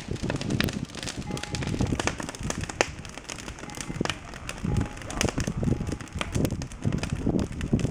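Wood fire crackling, with many short sharp pops scattered over a low rumble.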